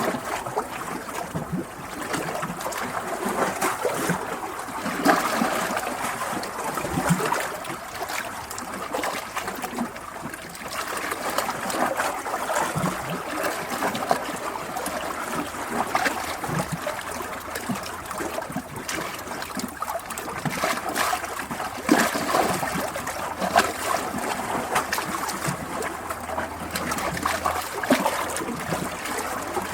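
Water trickling and splashing continuously over stones, like a small stream or brook, with many small irregular gurgles and splashes.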